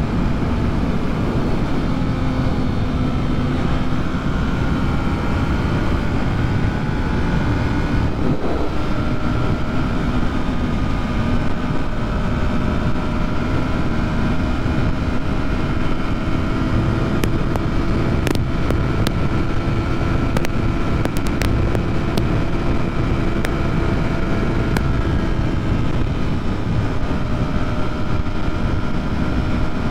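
Yamaha MT-03 motorcycle cruising at a steady pitch in a high gear, with heavy wind and road noise on the helmet microphone.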